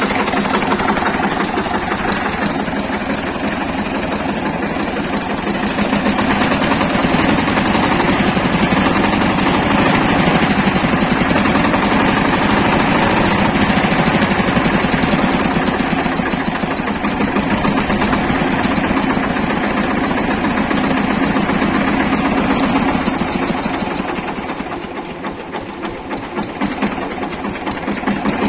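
Diesel engine of a Shifeng SF-244 mini tractor running cold with a knock. The owner has shimmed the injection pump to retard the injection timing to soften the knock, and he blames the remaining harshness on the engine not being warmed up. The sound drops a little in level about 24 seconds in.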